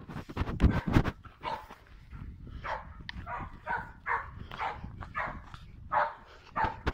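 A dog barking over and over, about two barks a second, after a few heavy thumps in the first second.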